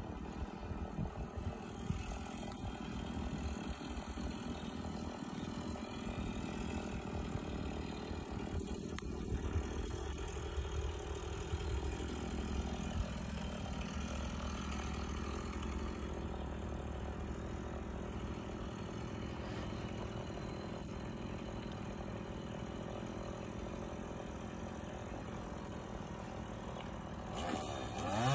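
An engine idling steadily in the background. Right at the end a chainsaw starts up and its pitch rises sharply as it is revved.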